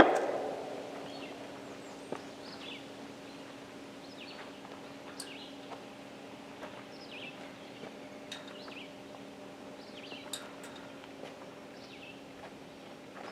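Birds chirping here and there in the open air over a faint steady hum, with the last of a loudspeaker announcement echoing away in the first second.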